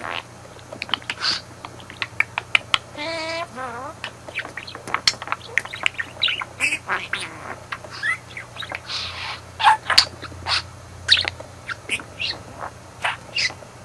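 Budgerigar chattering: a rapid run of short chirps and clicks, with a wavering warble about three seconds in.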